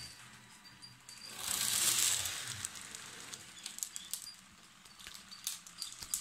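Small TT-scale model diesel locomotive running past close by: a brief swell of hissing motor and wheel-on-rail noise that rises and fades about a second in. Near the end come a few short clicks from a phone being handled.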